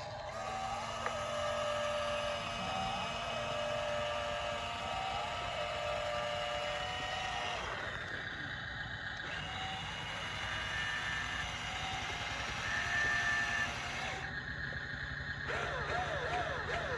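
Small electric motors and gearboxes of radio-controlled construction models whining, with small rises in pitch as the machines work. The sound changes abruptly twice.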